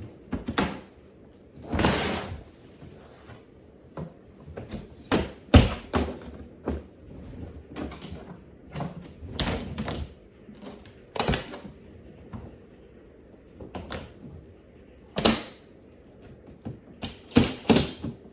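Hardside polycarbonate carry-on suitcase being handled: an irregular series of knocks, clicks and short scrapes, the loudest knock about five and a half seconds in.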